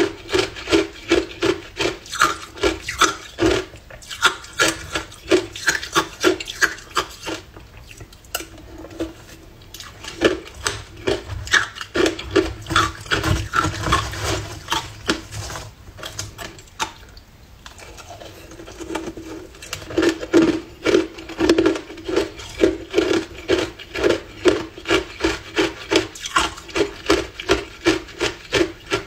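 Hard ice chunks dusted with matcha powder crunched between the teeth, close to the microphone: a long run of sharp crunches about two to three a second, with a couple of short pauses. Midway a metal spoon scrapes through the ice in the bowl.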